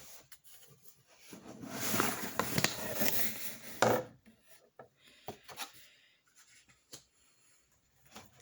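A box being opened and its packing handled: rubbing and scraping for a couple of seconds, a sharp knock about four seconds in, then light scattered rustles and clicks.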